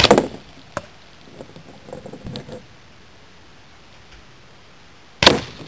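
Two shots from a Slavia 630 spring-piston air rifle, one at the start and one about five seconds later, each a sharp crack, with a few lighter clicks and knocks in between.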